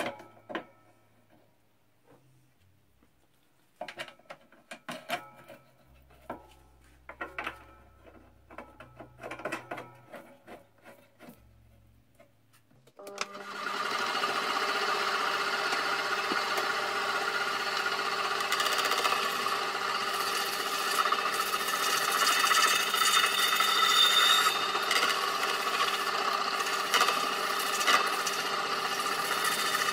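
Light handling clicks and knocks as a crash cymbal is clamped onto a homemade cymbal lathe. About 13 s in, the lathe starts and the spinning cymbal rings steadily over a rubbing, scraping hiss as a hand tool is held against it near the bell to strip off a sticker.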